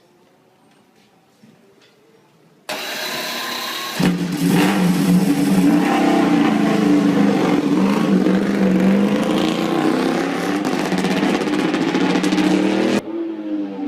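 MotoGP racing motorcycle engine running at high revs with its pitch rising and falling. It starts suddenly about three seconds in, gets louder a second later, and cuts off abruptly near the end.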